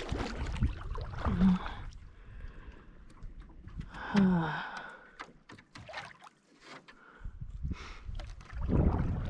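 Canoe paddling: paddle strokes and water drips, with small clicks and knocks on the hull. A brief vocal sound falls in pitch about four seconds in, and there is low rumbling near the end.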